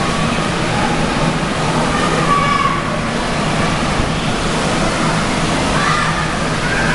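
Steady rush of water from a water-park lazy river and the small waterfalls pouring off its rock walls, with faint distant voices now and then.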